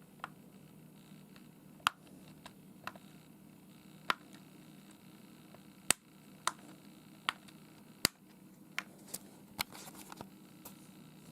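Sharp, irregularly spaced clicks and taps, about a dozen, of small parts and tools being handled while the digital piano is worked on, over a low steady hum.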